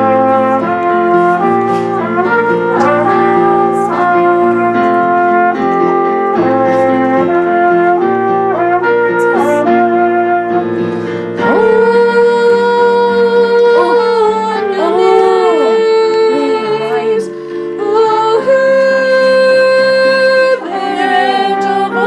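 Music comes in abruptly, loud: a melody over held chords, Christmas programme music.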